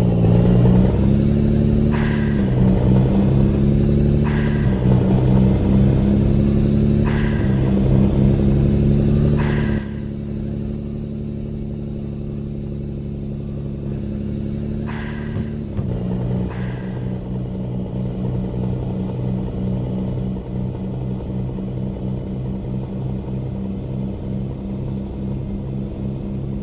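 Truck engine accelerating up through the gears, its pitch climbing and then dropping back at each shift, with a short sharp sound at each change, about every two to three seconds. After about ten seconds it settles into a quieter, steadier run.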